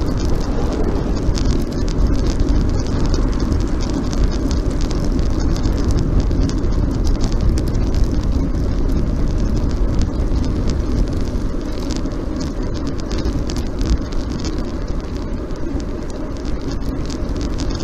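Steady wind rush and tyre noise on the road from a camera riding on a moving road bicycle, with a rough low rumble and a fine crackle over it.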